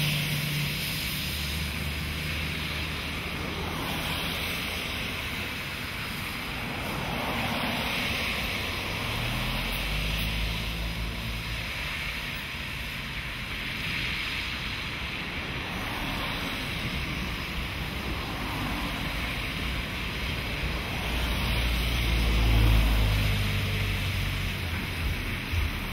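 Cars driving past on a flooded, rain-wet road, their tyres hissing through the water and their engines humming as they pass. The loudest pass comes about 22 seconds in. A steady rush of wind on the microphone runs underneath.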